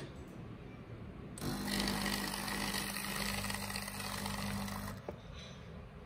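Espresso machine's pump humming steadily for about three and a half seconds as it runs the one-shot cycle, pushing hot water through the brew head, then stopping with a brief click.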